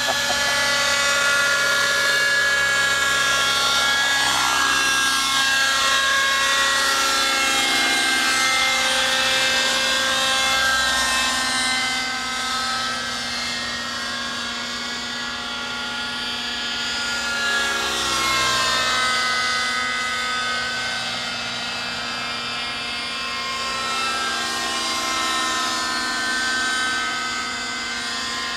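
Thunder Tiger Raptor 50 nitro RC helicopter in flight: its .50-size two-stroke glow engine and rotor make a steady whine of several tones together. The pitch shifts about five seconds in and again about eighteen seconds in as it manoeuvres, and it is a little quieter in the second half.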